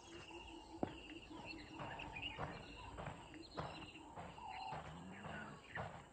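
Outdoor bush ambience: a steady high-pitched insect drone, insects trilling in short pulsing runs, and scattered bird calls, with soft footsteps on sandy ground and a sharp click about a second in.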